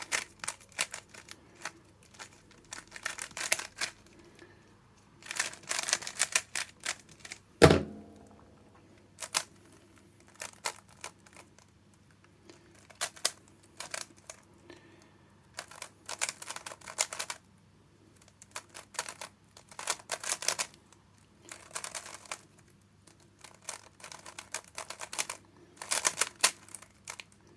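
Rubik's cube layers being turned fast by hand: bursts of rapid plastic clicking and clacking, with short pauses between bursts. One heavier thump about eight seconds in.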